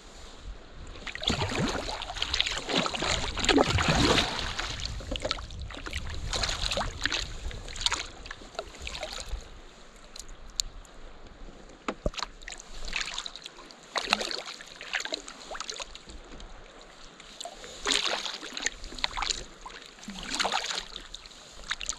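Kayak paddle strokes: the blades dip and splash in the water, then drip, about once every one to two seconds. Wind rumbles on the microphone through the first half.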